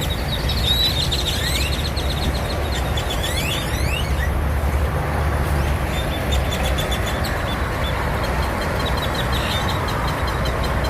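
A flock of great-tailed grackles calling: quick rising whistles and rapid clicking rattles, the whistles mostly in the first few seconds. A steady low rumble of engines runs underneath.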